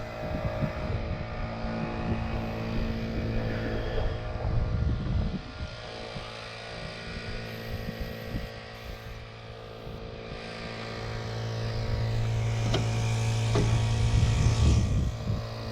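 A motor running steadily with an even low hum, fading down midway and swelling back up near the end, with wind buffeting the microphone.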